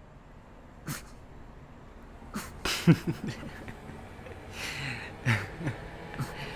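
A man's muffled grunts and sharp breaths in short, irregular bursts, his mouth and nose sealed under a covering of webbing.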